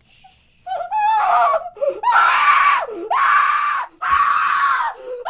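A gagged woman screaming: four long, loud screams, one after another with brief breaths between them.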